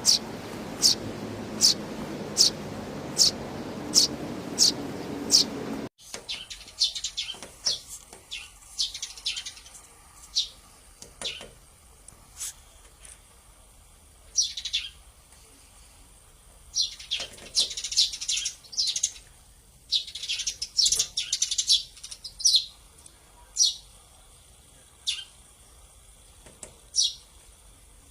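Sparrows chirping. First comes a steady run of single sharp chirps, about two a second, over a noisy background. After a sudden change about six seconds in come scattered chirps and short bursts of chatter over a quieter background.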